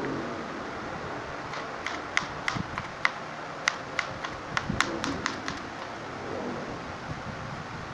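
Kitchen knife tapping a cutting board while slicing upo (bottle gourd): a quick, irregular series of about a dozen sharp taps, starting about a second and a half in and stopping about five and a half seconds in.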